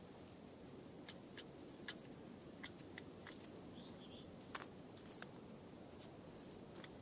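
Dark-eyed junco hopping and pecking on a metal seed tray: a scatter of faint, sharp, irregularly spaced clicks over a low steady rumble of distant road noise. A brief high trill comes about three seconds in.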